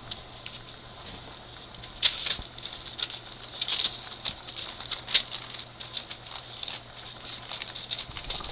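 Three-week-old Great Dane puppies playing on bedding: irregular small clicks, scratches and patters of their paws and claws, busier from about two seconds in.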